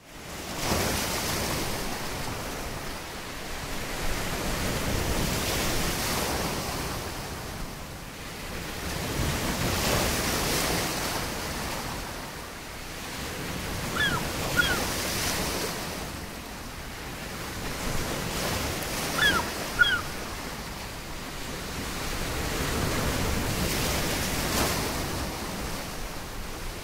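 Sea waves breaking and washing on the shore, swelling and easing every four to five seconds. A bird gives a short two-note call twice, about halfway through and again some five seconds later.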